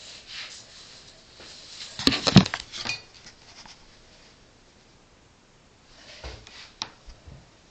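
Handling noise of a camera pressed into an animal's fur: a burst of rustling and clicking knocks about two seconds in, and a shorter group of knocks near the end.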